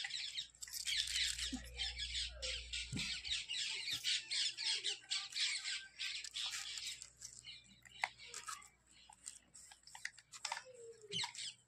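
Birds chattering: a fast, dense run of high, scratchy squawks for the first several seconds, thinning out to scattered single chirps after that.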